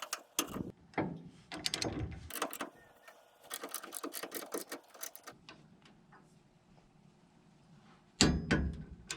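Ratchet wrench clicking in quick bursts as the nut on the tie-down's retention piece is run down and tightened, followed by a louder knock near the end.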